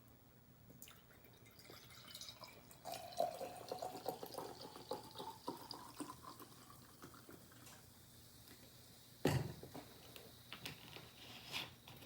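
Liquid poured into a container, its pitch rising as it fills, with a sharp knock and a few clicks later on.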